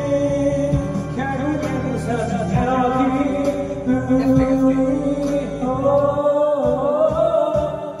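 A man singing a song into a karaoke microphone over a karaoke backing track with a steady beat, his voice carried through the booth's speakers with long held, wavering notes.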